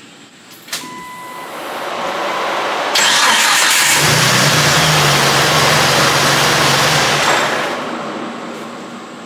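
Turbocharged Jeep 4.0 inline-six engine run up and held at a fast, steady speed during cam break-in, under a loud rush of air noise. The noise swells, jumps up suddenly about three seconds in, then fades away near the end as the engine comes back down.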